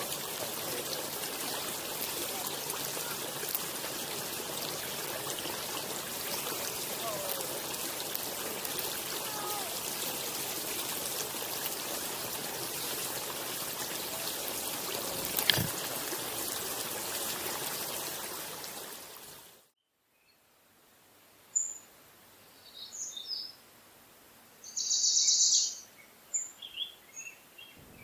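A steady rushing hiss like running water, with one sharp click about fifteen seconds in. It fades out at about twenty seconds, and small birds then give a few high chirps and one short trill.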